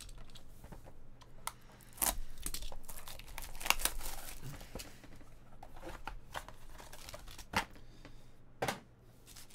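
Trading-card pack wrapping being torn open and crinkled, with scattered sharp crackles and clicks as the wrapper and cards are handled.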